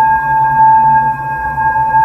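Ambient relaxation music: a single sustained, steady tone held throughout, with a few fainter overtones above it.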